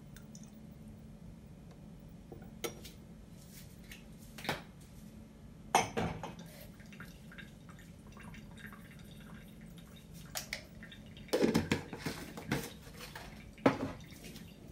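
Spoons clinking and tapping against a small bowl as soy sauce and sugar are measured into it: a string of short, irregular knocks, the loudest around the middle and near the end, over a faint steady low hum.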